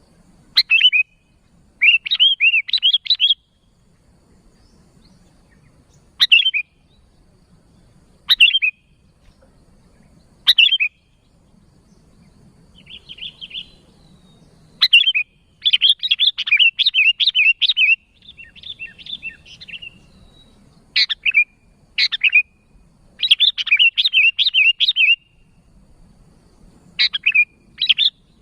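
Sooty-headed bulbul calling: single sharp notes alternating with quick runs of chattering notes, repeated with short pauses between.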